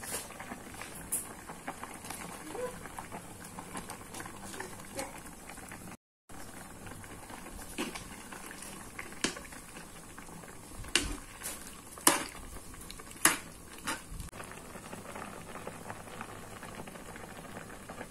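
Chicken meatball soup bubbling at a steady boil in a pan, with a ladle clinking against the pan a few times about eleven to thirteen seconds in.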